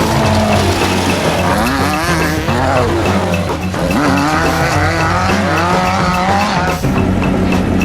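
Off-road race truck engines revving up and down, the pitch rising and falling repeatedly, over a music track with a steady ticking beat. The revving breaks off about seven seconds in.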